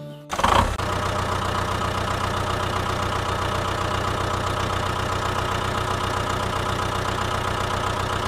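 An engine starts with a loud burst about a third of a second in, then idles steadily with an even, fast-pulsing rumble.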